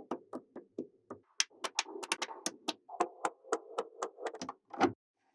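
Small neodymium magnetic balls clicking together as they snap into place, in a rapid, irregular run of sharp clicks.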